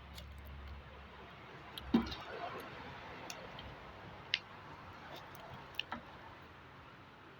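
Eating utensils knocking and clinking against a bowl: one knock about two seconds in, then a few sharp, separate clicks.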